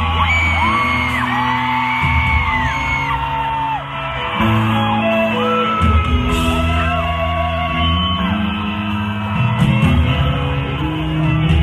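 Loud amplified pop music with a singer holding long notes that glide between pitches, echoing through a large concert hall during a sound check.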